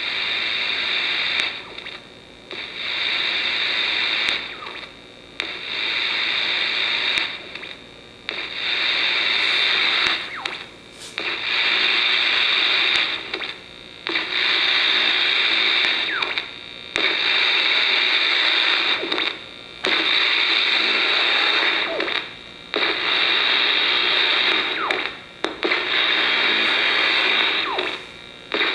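AM radio blaring a harsh static of interference picked up from an old portable television beside it. The static drops out briefly about every three seconds as a relay switches the TV off and back on.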